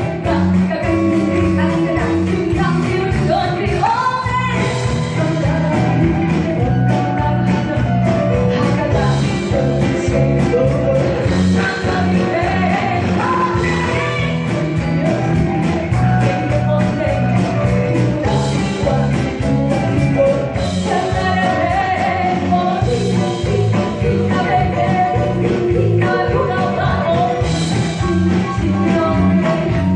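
Live band playing a rock-style song with a lead singer's voice over the band and a steady beat.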